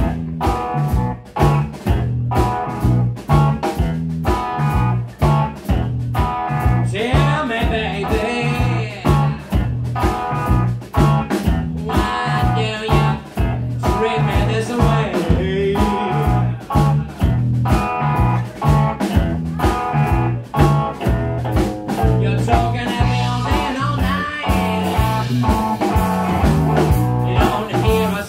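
Live blues-rock band playing: electric guitar, bass guitar and drum kit with a steady beat, and a man singing at times.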